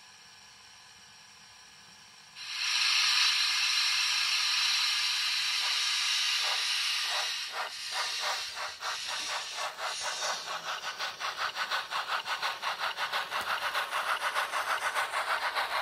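Sound decoder of an REE Modèles 231K steam locomotive model playing the engine pulling away. A loud steady steam hiss starts suddenly about two seconds in, then exhaust chuffs begin slowly and quicken to a steady fast beat of about three or four a second.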